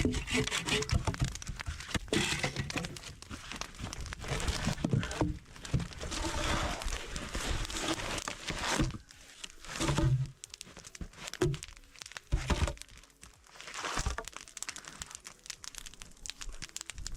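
Irregular crunching and crinkling of snow and branches being handled while a log bed is built in the snow, with a few dull knocks about ten seconds in.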